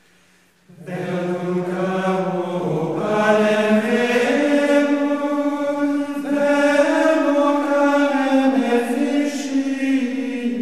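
Slow vocal music: long held sung notes that change pitch every couple of seconds, coming in about a second in after a brief pause.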